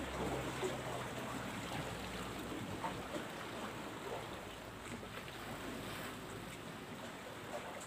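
Steady outdoor wash of calm sea water and light wind on the microphone, with a faint low hum that fades out about six seconds in.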